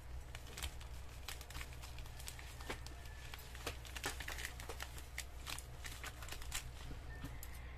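Plastic courier mailer crinkling and crackling as it is handled and turned over in the hands, a stream of short irregular crackles.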